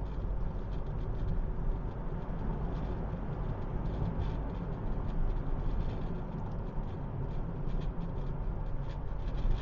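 Steady low road and engine rumble inside a moving car's cabin, with faint scattered light ticks.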